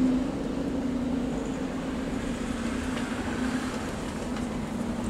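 Irish Rail 8300-class DART electric train pulling away, its steady low hum sinking slightly in pitch and fading slowly. A car engine joins as road traffic starts over the level crossing.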